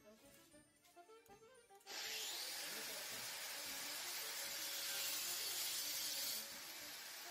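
A handheld electric power tool starts suddenly about two seconds in and runs with a steady, loud hiss while cutting into a metal part held in a vise. It eases off briefly near the end.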